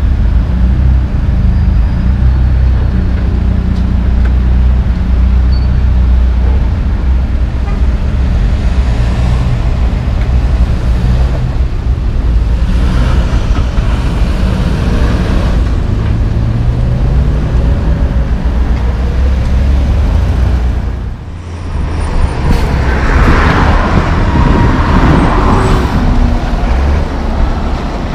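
Road traffic: a steady low rumble of idling and moving vehicle engines. About three-quarters of the way through it briefly drops, then a louder vehicle passes.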